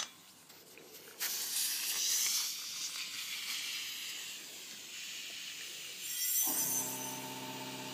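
A click, then compressed air hissing from an air-hose quick coupler as it is pushed onto a fire extinguisher's valve to pressurize it. About six and a half seconds in, a motor starts with a steady hum.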